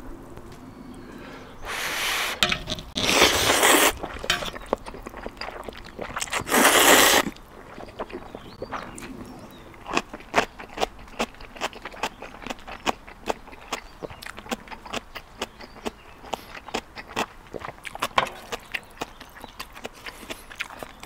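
Ramen noodles slurped in three loud bursts of about a second each, then close-up chewing with many small wet clicks and smacks.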